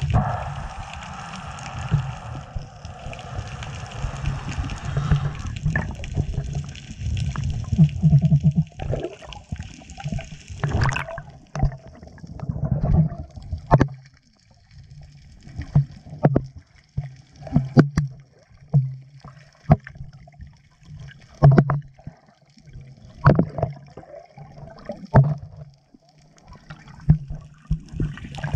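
Water sloshing and churning around an underwater camera held just below the surface. About halfway through it turns into sharp splashes every second or two.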